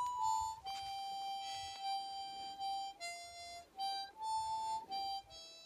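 Music: a slow, simple melody of single clear, high notes, each held about half a second to a second, stepping up and down in small intervals with short breaks between them.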